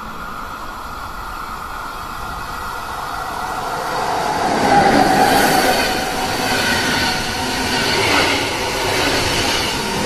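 SBB passenger train approaching and passing close by. Its rolling noise grows louder over the first five seconds and stays loud as the coaches go past, with a steady high whine over the rumble.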